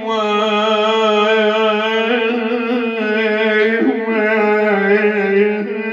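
A man's voice singing a long, drawn-out wavering note between the words of an Arabic religious lament (na'i), held without a break and fading near the end.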